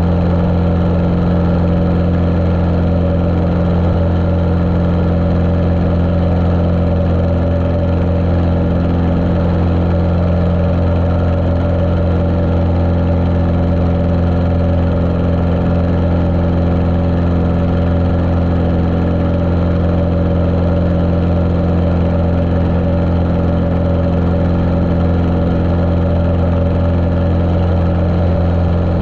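Cessna 150L's Continental O-200 air-cooled flat-four engine and propeller running at a steady, unchanging power setting, muffled by the GoPro's waterproof case.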